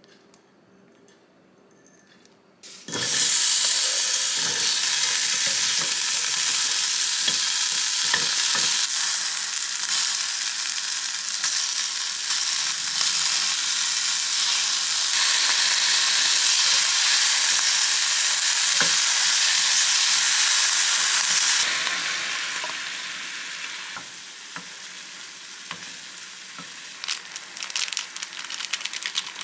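Onion and octopus stir-frying in hot oil in a pan: a loud sizzle starts suddenly about three seconds in, with the light clicks of stirring. About 22 seconds in the sizzle falls to a quieter simmer once the soaked noodles and their water are added, and there are sharp clicks near the end.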